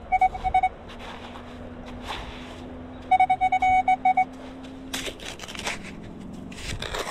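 Nokta The Legend metal detector sounding a target signal: a rapid string of short, even beeps at one mid pitch, first briefly and then again about three seconds in. Near the end comes a run of short scrapes and knocks.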